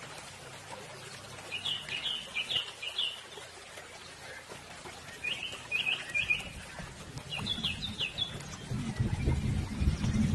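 A small songbird calling in three bursts of quick, repeated chirps. A low rumble builds up in the last couple of seconds.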